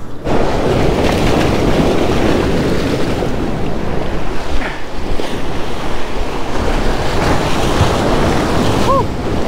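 Surf breaking and washing over jetty rocks, with wind rumbling on the microphone.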